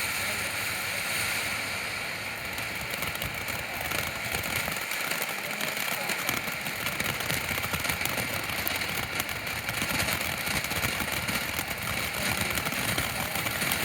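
Fireworks fountain spraying sparks: a steady hiss with dense crackling, the crackle growing busier about eight seconds in.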